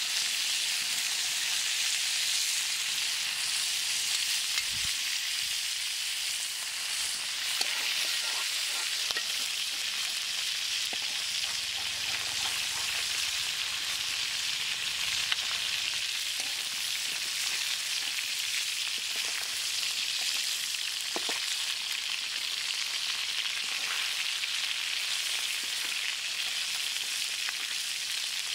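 Carp steaks sizzling steadily as they fry in hot oil in an iron kadai. A metal spatula scrapes and taps the pan now and then as the pieces are turned and lifted out.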